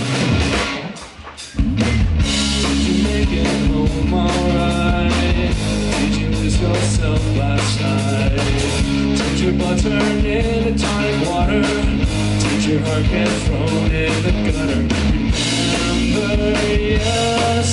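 Live rock band playing: two electric guitars, bass guitar and drum kit, with a male lead vocal. The band drops out briefly about a second in, then comes back in at full level.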